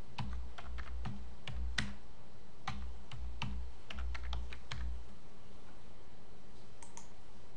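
Typing on a computer keyboard: irregular keystrokes for about five seconds as a username and password are entered, then a faint click near the end.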